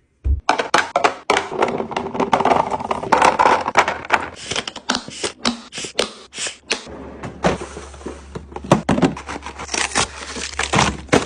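Kitchen items being handled and put away: a busy run of knocks, clicks and scrapes, with a low steady hum from about seven seconds in.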